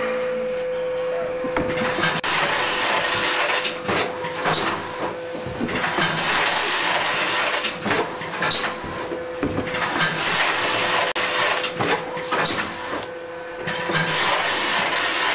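Automatic case erector running through its box-forming cycle: repeated spells of hissing noise roughly every two seconds with sharp clacks, over a steady hum.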